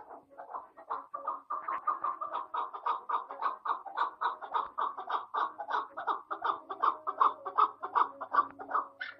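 Chukar partridge calling: a long, fast run of repeated chuk notes, about five a second, growing louder after the first second or so.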